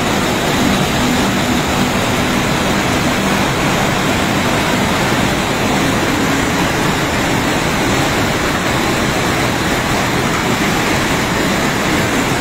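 Loud, steady rushing roar of a muddy flash-flood torrent pouring down an eroding hillside.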